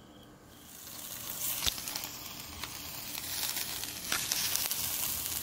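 Beef rib-finger meat sizzling on a wire grill over charcoal, its fat spattering with a steady hiss and a few sharp crackles. The sizzle swells up about half a second in.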